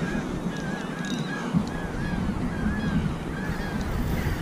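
Rhythmic squeaking from gear on a fishing kayak as a fish is being fought, about two or three short rising-and-falling squeaks a second, over a steady low rumble.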